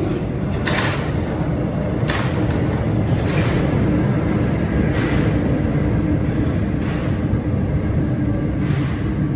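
Paris Métro train running: a loud, steady rumble with a sharp clack every second or two.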